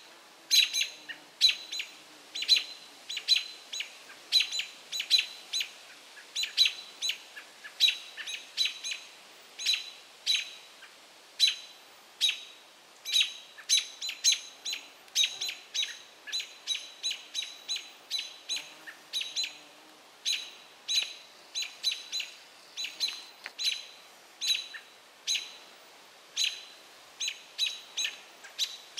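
American robins giving sharp alarm calls, short and repeated about twice a second in uneven runs throughout. They are calling in alarm at a great gray owl in their territory.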